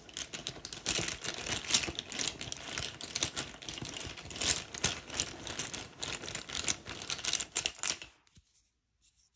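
Small tarot tiles clicking and clattering against one another as a hand rummages and shuffles them, with rustling. It lasts about eight seconds and stops near the end.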